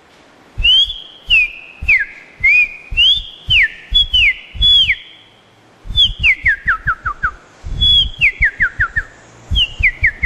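A person whistling an imitation of a streaked saltator's song. Clear notes rise and then slur sharply down, repeated about twice a second. From about six seconds in come runs of quick notes stepping lower and lower. Each note has a low puff of breath on the microphone.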